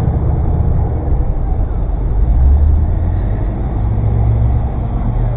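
Car engine running with a low, steady rumble as the car moves slowly in traffic, heard from a camera mounted on the outside of the car.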